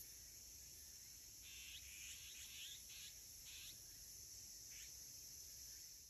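Faint, steady high-pitched insect chorus, with a run of about six short, harsh azure-winged magpie calls between about one and a half and five seconds in.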